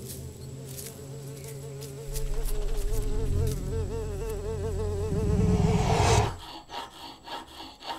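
A fly buzzing with a wavering pitch over a low rumbling drone. Both cut off suddenly about six seconds in.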